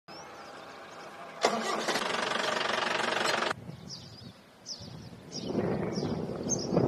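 Engine running close by: loud with a fast even pulse for about two seconds, cutting off suddenly, then a lower rumbling noise with a few short high chirps over it.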